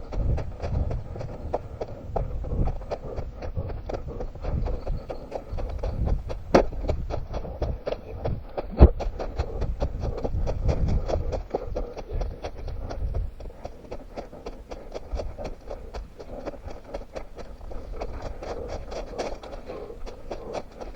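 A runner's footfalls on forest ground, picked up by a head-mounted camera: a steady rhythm of thuds with rustle, and two sharper knocks about six and nine seconds in.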